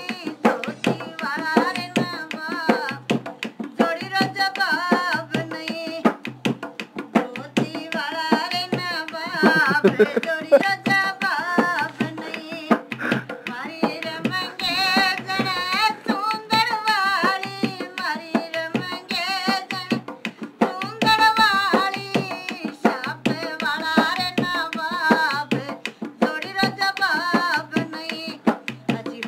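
Live Rajasthani folk singing accompanied by a dholak, the two-headed barrel drum beating a steady rhythm under the sung phrases.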